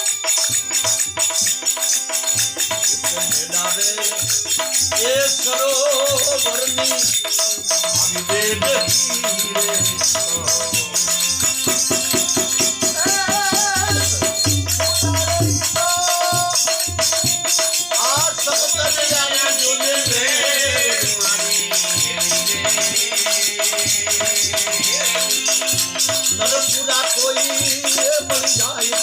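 Devotional bhajan music: a voice singing over steady, fast hand percussion with a rattling jingle.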